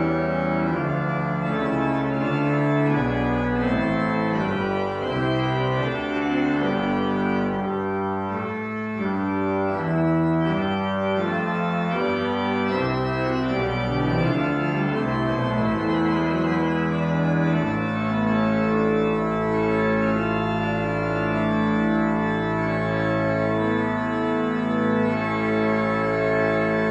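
Church organ playing a slow piece in sustained chords that change every second or so. About two-thirds of the way through, a deep bass pedal note enters beneath a long held chord.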